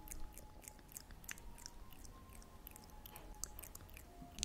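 Soft, scattered clicks and crackles made close to the microphone, typical of ASMR trigger sounds between whispered passages.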